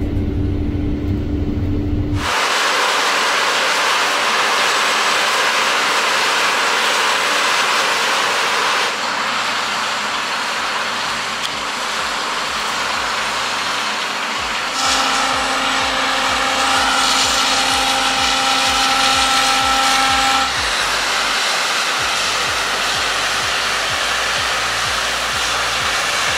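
New Holland CR10.90 combine harvesters running while harvesting canola. For the first two seconds there is a steady low hum with a droning tone inside the cab. After that comes a loud, steady rushing noise from the working machines, with a steady whine added for several seconds in the middle.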